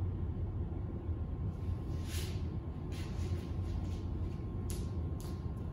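Steady low room hum, with a few faint soft shuffles and steps as a person gets up from an exercise mat and walks away barefoot.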